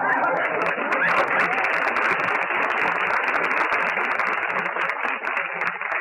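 Studio audience laughing and applauding, a dense patter of clapping that tapers off near the end.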